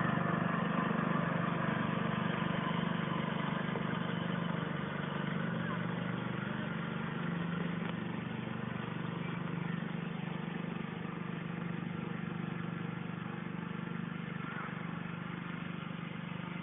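Small petrol engine of a ride-on vehicle running steadily as it tows a sled across grass, its drone slowly fading as it pulls away.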